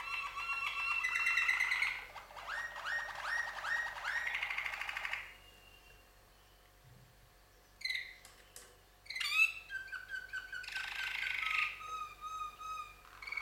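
Two caged domestic canaries singing in duet: fast rolling trills and quickly repeated chirped phrases, breaking off about five seconds in, then starting again a couple of seconds later with sharp whistled notes and more trills.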